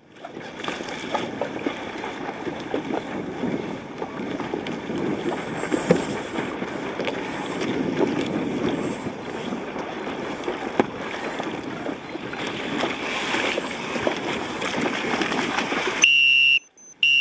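Wind rushing over the microphone and water splashing against a small boat's hull, with a few sharp knocks. Near the end, two short high-pitched electronic beeps about a second apart.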